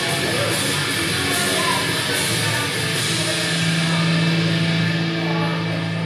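Rock music playing loud, with a long held low note from about halfway through.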